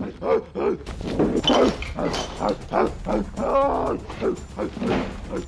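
A person imitating a gorilla: a rapid string of short ape-like grunts and hoots that rise and fall in pitch, with one higher, drawn-out hoot a little past the middle.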